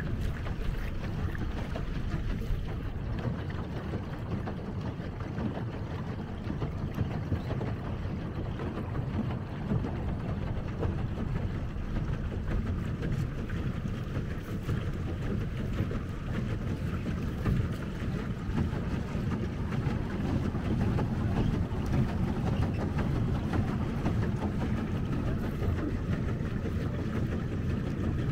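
Pedal boat moving across a lake: a steady low rumble of wind buffeting the microphone over the churn of water at the boat.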